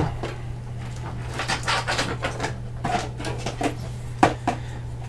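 Power supply cables and a plastic SATA power connector being handled and plugged in: rustling with a run of small clicks and taps, one sharper click about four seconds in, over a steady low hum.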